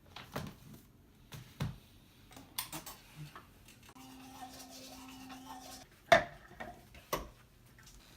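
Hobby servo motors whirring steadily for about two seconds as they move a curtain, between scattered clicks and handling knocks; the loudest is a sharp knock about six seconds in, followed by another a second later.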